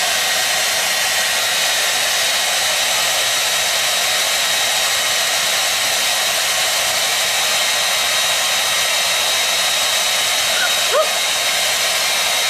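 A steady, unbroken rushing hiss with a faint high whine running through it. A couple of short squeaky glides come about eleven seconds in.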